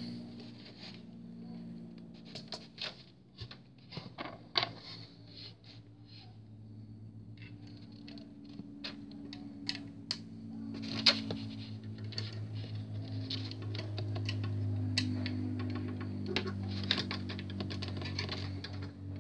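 Irregular small clicks and taps of a plastic 1:200 airliner model being handled, as a separate engine nacelle is fitted under the wing, over a low steady hum.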